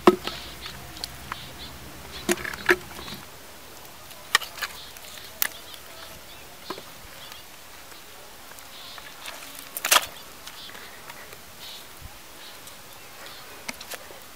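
Hard, dry cracked mud being pried up and broken apart by hand: scattered sharp knocks and cracks as clods snap and drop, the loudest near the start and about ten seconds in.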